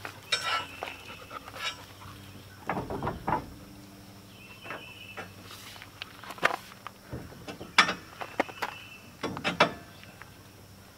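Irregular clanks and knocks of a steel-tube canoe carrier being worked into a pickup truck's hitch receiver, metal on metal. Several of the hits ring briefly.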